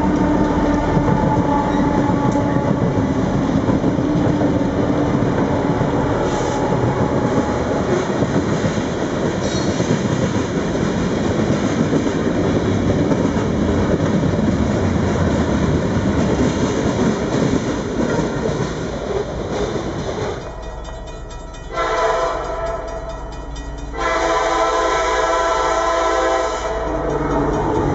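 New York, Susquehanna & Western freight train led by EMD SD60 diesel locomotives passing a grade crossing: a steady rumble of locomotives and then freight cars rolling over the rails. About twenty seconds in the sound changes abruptly, and near the end a chord horn sounds.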